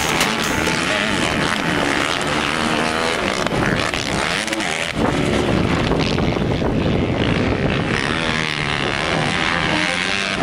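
Several motocross bikes' engines revving, their pitch rising and falling as they accelerate and shift through the gears.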